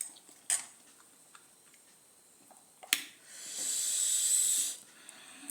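A few short clicks, then a high hiss of breath lasting about a second and a half: air sucked in through the teeth against the burn of very spicy noodles.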